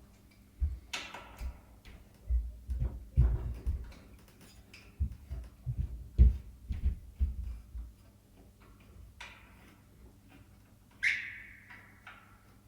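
Allen key working the M8 bolts on a Rogue Echo air bike's steel frame: irregular metal clicks and clinks with dull knocks and handling thumps, and one brief ringing clink near the end.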